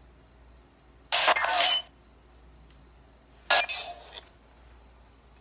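Spirit box scanning the radio, giving two short bursts of static and broken radio sound, about a second in and again at three and a half seconds. Between the bursts, crickets trill steadily.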